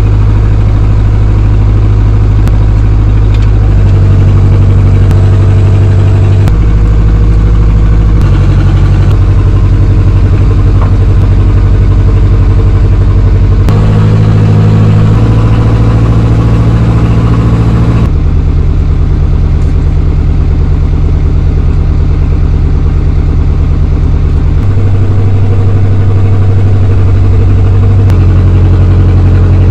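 Hydraulic excavator's diesel engine running under changing load, its low note shifting in steps every few seconds as the boom lifts and lowers concrete discs on a chain.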